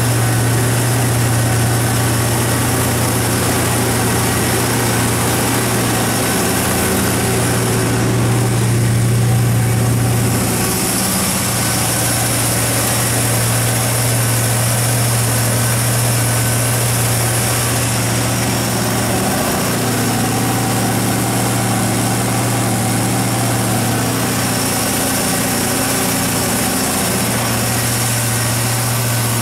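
GM 5.7 L V8 engine of a Baldor natural-gas generator set running steadily at constant speed, with an even hum.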